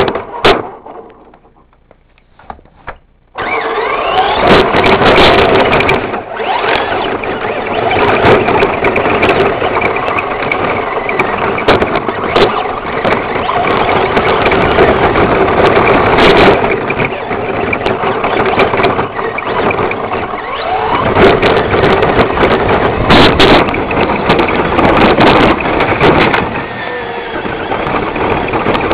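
Traxxas Slash RC truck driven hard close up: loud motor and drivetrain noise that rises and falls in pitch as it speeds up and slows, with knocks and rattles from bumps. It starts about three seconds in, after a near-quiet opening with a few clicks.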